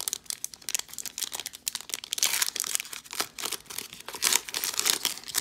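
Plastic wrapper of a 2021 Mosaic Football trading-card cello pack crinkling and tearing as it is peeled open by hand, in irregular crackles with louder clusters about two seconds in and near the end.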